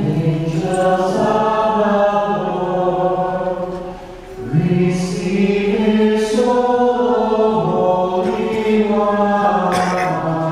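A choir chanting a slow hymn in unison, long held notes in phrases, with a brief pause for breath about four seconds in. This is the sung chant of a Catholic funeral's final commendation.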